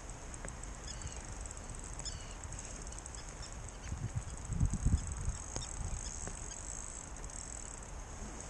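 Steady high hiss with a fine crackle of rain pattering, and low wind buffets on the microphone about four to five seconds in.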